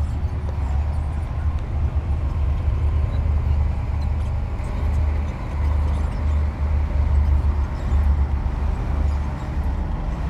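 Diesel engine of heavy earthmoving equipment running continuously, a low rumble that swells and eases slightly as the load changes.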